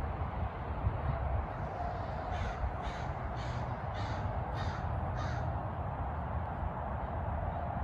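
A crow cawing six times in a quick, evenly spaced series, over a steady low outdoor rumble.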